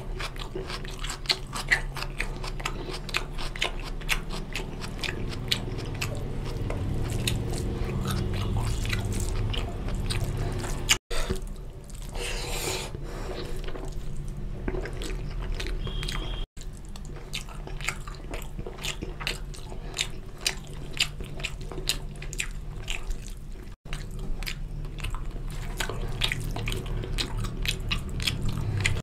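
Close-miked eating sounds: fingers squelching rice into a wet chicken curry on a steel plate, along with chewing and lip smacks. The sounds come as a dense run of small wet clicks, broken by three very brief silences.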